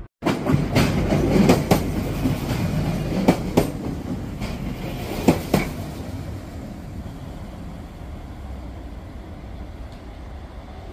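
Regional passenger train running past close by, its wheels clacking in close pairs over rail joints for the first six seconds. Its running noise then fades as it moves away down the line.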